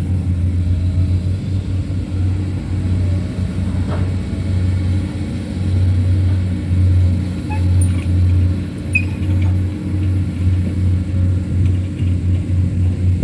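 Diesel engine of a Komatsu PC200 hydraulic excavator working under load: a deep, uneven rumble that swells and eases as the machine digs and swings, with a few faint metallic clicks partway through.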